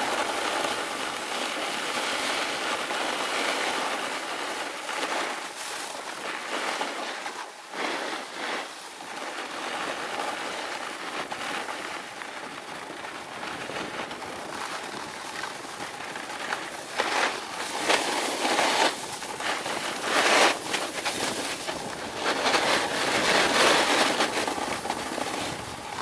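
Snowboard sliding and carving over groomed snow: a continuous scraping hiss from the board's base and edges, with louder surges in the second half as it cuts harder through turns.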